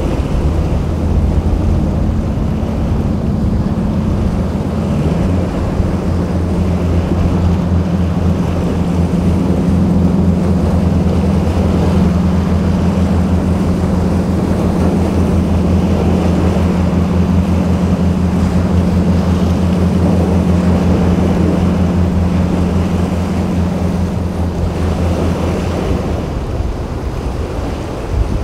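Boat engines running steadily through rough inlet surf, with a low hum that shifts in pitch about five seconds in and fades near the end, over breaking waves and wind buffeting the microphone.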